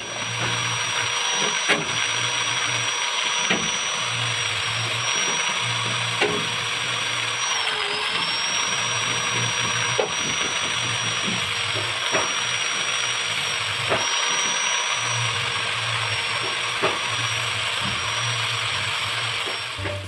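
Electric power tool motor running with a steady high whine. The whine dips briefly about eight seconds in as the tool is loaded. Background music plays underneath.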